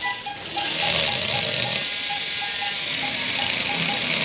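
Cranial drill running steadily as it bores a burr hole through the skull, a loud high-pitched hiss that dips briefly near the start. A short beep repeats about three times a second alongside it.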